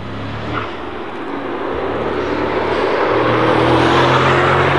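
Mercedes-AMG SL roadster's engine pulling under acceleration as the car drives past, getting steadily louder to a peak about four seconds in, its pitch rising slowly.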